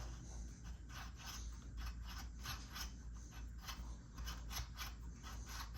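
Steel thread die turned by hand on an M10 x 1.5 bolt, scraping and rasping in short irregular strokes as it cuts through old Loctite and corrosion caked in the threads.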